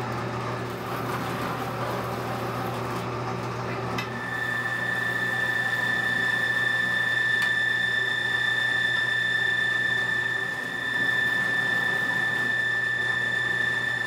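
Vertical bandsaw running and cutting through a solid brass doorknob. About four seconds in, a steady high-pitched ring joins the machine's running sound and holds as the cut goes on.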